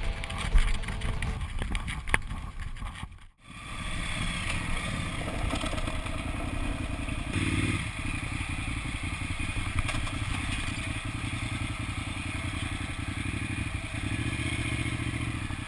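KTM 950 Super Enduro R's V-twin engine running as the bike is ridden off-road, with clatter from the bike over rough ground. The sound breaks off briefly about three seconds in, then resumes steadily, with the revs rising a little a couple of times.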